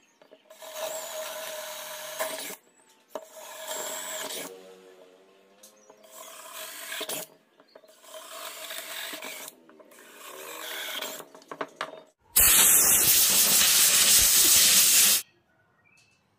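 Makita cordless drill boring pilot holes into pine boards in several short runs of one to two seconds, its motor whining at a steady pitch. Near the end comes a much louder rushing hiss lasting about three seconds.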